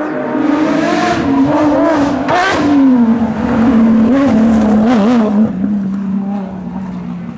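Porsche 911 rally car's flat-six engine at high revs, its pitch wavering up and down under throttle changes, then settling lower and steadier near the end. Short noisy bursts come about two and a half and five seconds in.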